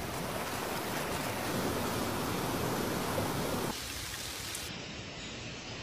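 Steady hiss of falling water, like rain or drips pattering onto a pool, turning a little quieter and thinner about two-thirds of the way through.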